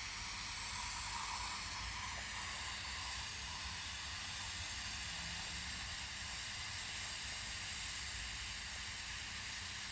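Aerosol can of Quick Start spray cleaner giving one long, steady hiss as it fills the idle air control valve with cleaner to dissolve the carbon that makes it stick.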